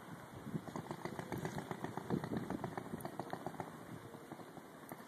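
Faint small single-cylinder four-stroke engine, a 6 hp Honda-clone engine on a motorized trike, running with a rapid, even putter.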